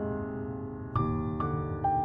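Slow background piano music with notes held and ringing on; fresh notes are struck about a second in and twice more near the end.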